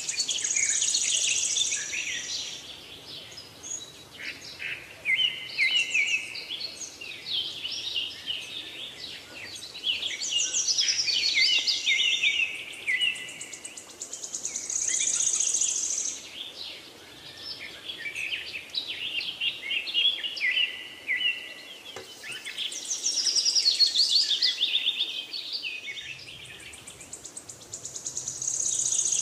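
Birds chirping and trilling, many quick high calls overlapping in clusters that swell and fade every few seconds.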